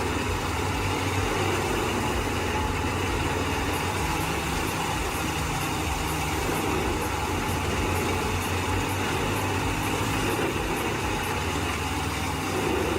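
Wood chipper's diesel engine running steadily, with a faint high ticking about twice a second through the middle.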